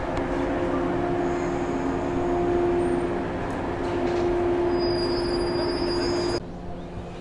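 115-series electric train running, a steady noisy rumble with a held humming whine over it. The sound drops away abruptly about six seconds in.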